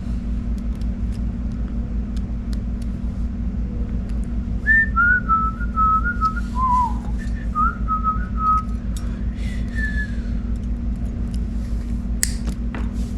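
A person whistling a short, wandering tune for about five seconds in the middle, over a steady low hum. A few sharp clicks come near the end.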